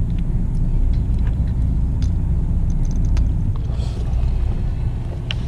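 Fishing boat's engine running with a steady low rumble, with light clicks of fishing tackle being handled over it.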